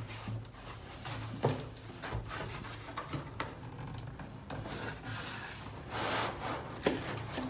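Cardboard box and packaging of a new coffee machine being handled and opened: rubbing and scraping, with scattered light knocks and a louder rustle about six seconds in.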